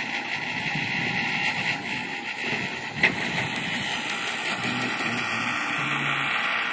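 Steady engine and machinery noise with a low drone that comes and goes in the second half, and a single sharp click about three seconds in.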